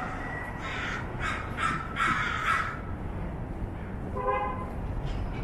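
A crow cawing several times in quick succession, the last call drawn out, over a steady low rumble of street traffic. A short tonal toot sounds about four seconds in.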